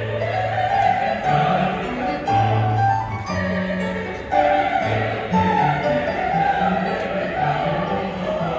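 A choir singing in a classical, operatic style, with long held notes and deep low voices under higher parts. It sounds like a group rehearsing.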